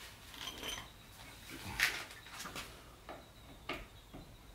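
A few light clicks and metallic taps of a bolt and trim fasteners being handled and set in place on a van's body, the sharpest about two seconds in.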